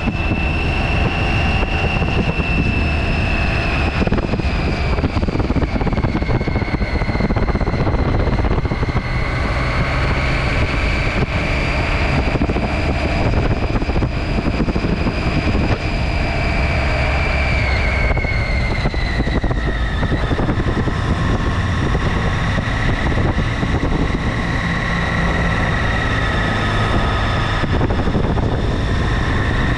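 Onboard sound of a 2017 Triumph Tiger XCx three-cylinder adventure motorcycle under way: steady engine drone with road and wind noise. A high whine runs over it, shifting slowly with speed and dropping in pitch a little past halfway.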